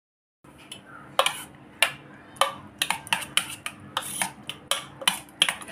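Steel spoon stirring curd and chopped vegetables in a stainless steel bowl, clinking against the bowl's side: a few separate knocks at first, then quicker, about four a second.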